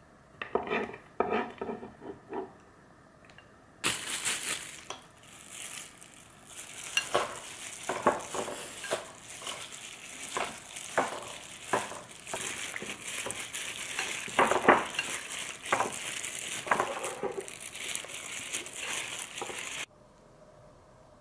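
A few knocks of a knife scraping chopped garlic off a cutting board into a bowl. Then chicken pieces are mixed by hand in a thick, wet chili marinade, with a disposable plastic glove rustling and many sharp knocks against the bowl. This cuts off suddenly near the end.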